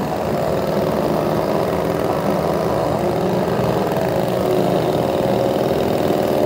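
Small two-stroke gas chainsaw running steadily, its chain spinning.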